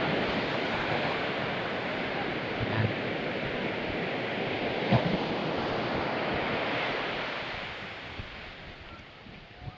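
Ocean surf washing on the beach, a steady wash of waves that dies away over the last couple of seconds.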